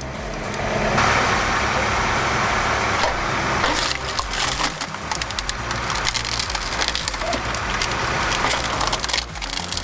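Posch Hydro Combi hydraulic wood splitter at work: logs cracking and splintering as they are forced apart, with many short sharp cracks over the steady hum of the machine's drive.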